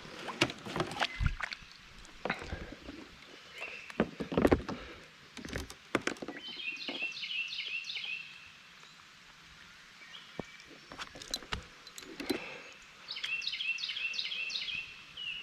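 Scattered knocks and clicks in a small fishing boat, with a bird singing twice, each time a phrase of quick repeated high notes lasting about a second and a half.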